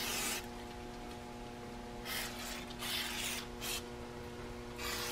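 Aerosol brake cleaner sprayed through its straw onto the aluminium crankcase mating surfaces in several short hissing bursts: one at the start, a quick run of three about two to four seconds in, and another near the end.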